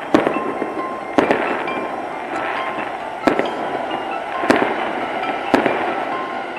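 Aerial firework shells bursting: five sharp bangs spread unevenly over a few seconds, each trailing off as it echoes and fades.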